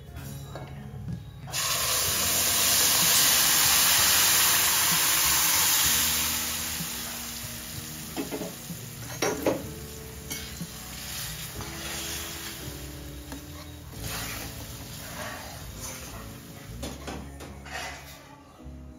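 Tomato paste hitting hot oil and curry leaves in a steel kadai: a loud sizzle bursts out about a second and a half in, holds for a few seconds, then dies down to a quieter bubbling.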